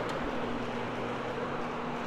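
Rotary floor machine running, its motor humming steadily while the hog's hair fiber pad spins and scrubs a level-loop carpet, gliding smoothly without chattering or jumping.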